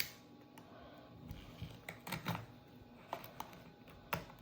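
Soft, irregular clicks and taps of hands opening a trading card pack and handling the cards.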